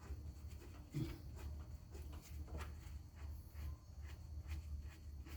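Hand work on the lathe's motor mount and drive belts: small scrapes and clicks of metal parts, with a soft thump about a second in, over a steady low hum.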